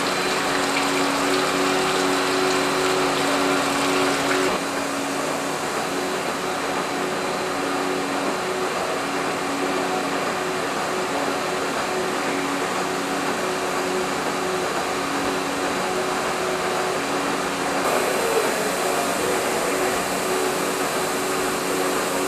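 Milking parlour machinery running, typical of the milking plant's vacuum pump: a steady mechanical hum with low droning tones. It changes in character about four seconds in and again near the end.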